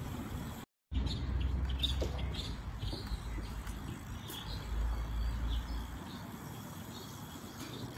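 Birds chirping in many short calls from the roadside trees, over a low rumble. The sound drops out completely for a moment just under a second in.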